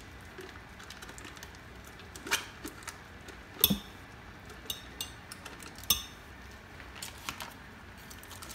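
A spoon knocking against a glass blender jar and a foil cream-cheese wrapper rustling as the cheese is scraped out into the jar: a handful of separate sharp clicks, the loudest about three and a half seconds in.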